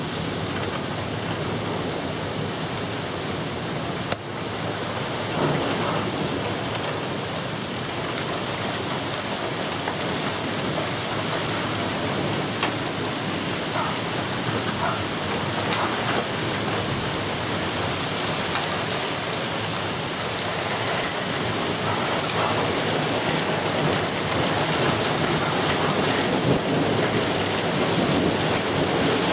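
Steady thunderstorm rain falling on a lawn, pavement and a wet street.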